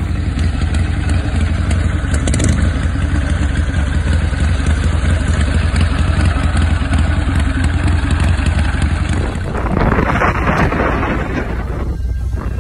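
Chopper motorcycle engine running steadily, deep and low. About nine and a half seconds in, the sound changes abruptly to a noisier hiss with engine sound underneath.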